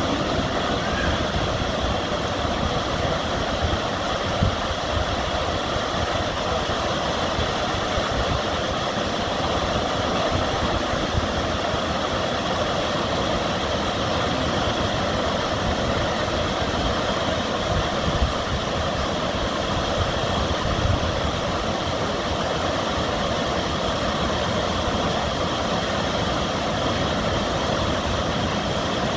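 Steady rush of river water pouring over a weir, an even noise with a low rumble underneath.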